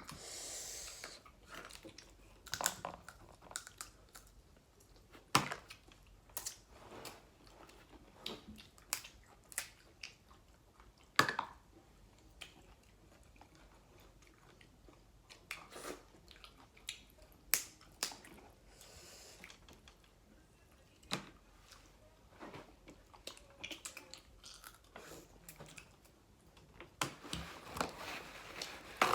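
Close-up eating sounds from a seafood boil: chewing and biting, with scattered sharp cracks and clicks every second or two.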